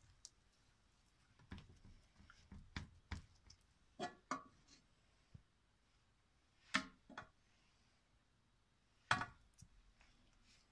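Quiet kitchen handling sounds: a few soft knocks, then several sharper clicks a couple of seconds apart, as a ladle of melted butter and hands work buttered dough in a metal baking tray.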